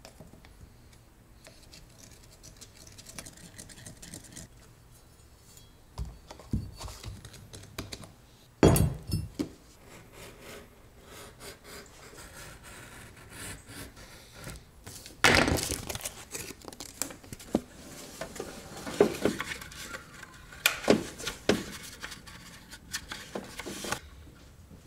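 Cardboard being cut and scraped with a small utility knife on a wooden workbench to cut out a template, with handling rustles and a few sharp knocks as parts are moved on the bench.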